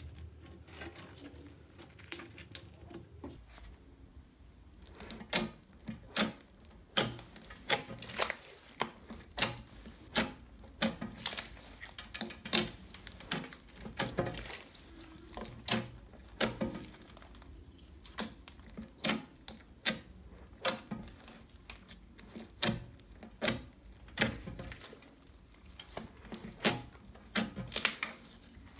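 Hands kneading and poking a large mass of glitter slime mixed with beads and foam pieces, making sticky squishes and sharp irregular clicks and pops. The clicks grow louder and more frequent about five seconds in, up to about two a second.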